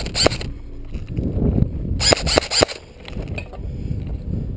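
Airsoft rifle firing: a quick pair of shots right at the start, then a rapid burst of about five shots about two seconds in, each a sharp crack.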